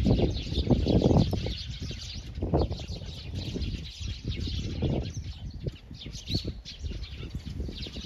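A flock of small songbirds chirping continuously in a dense, overlapping chatter. A few low rumbling bursts come through near the start, about two and a half seconds in, and about five seconds in.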